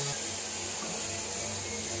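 Industrial wood planer running steadily as a timber beam feeds through it, an even high hiss over a low hum.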